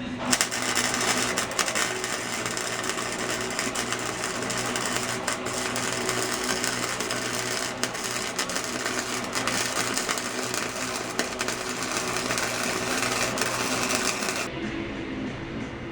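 Flux-core wire-feed welder arc crackling steadily through one long continuous weld, stopping near the end.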